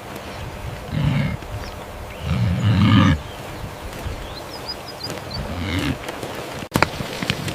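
Three low animal calls, the second the longest and loudest, followed near the end by a sharp click.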